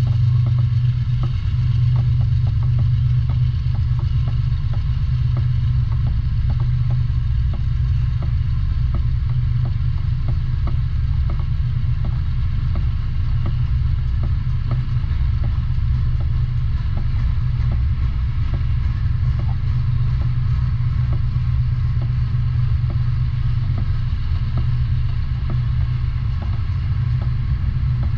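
A freight train of covered phosphate hopper cars rolling past at steady speed: a continuous low rumble, with wheels clicking over rail joints about two to three times a second.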